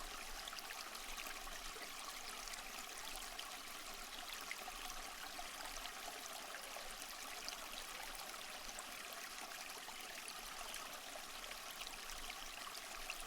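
A water stream running steadily, a faint, even trickle and babble.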